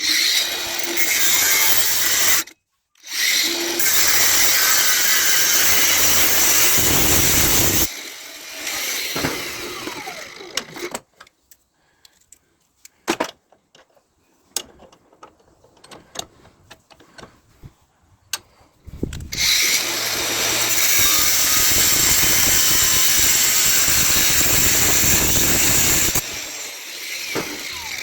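A power tool cuts through a brass fitting in long loud runs. It cuts twice in the first eight seconds, then there is a lull of several seconds with scattered small clicks and knocks, then another long cut from about two-thirds through.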